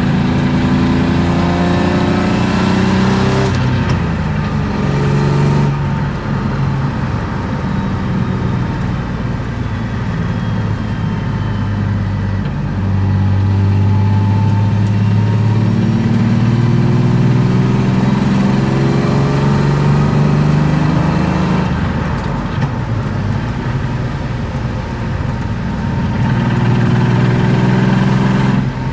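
BMW M50B25 2.5-litre straight-six with aftermarket headers and sport exhaust, pulling hard through the gears: the revs climb and drop sharply at an upshift about three and a half seconds in and again a couple of seconds later. It then holds a long steady pull, eases off with falling revs, and climbs again to another shift at the end.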